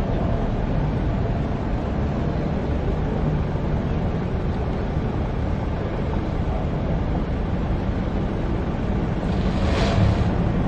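Mercedes-Benz G550's V8 running at low speed as the SUV crawls down a steep ramp, a steady low rumble. A short rushing hiss swells and fades near the end.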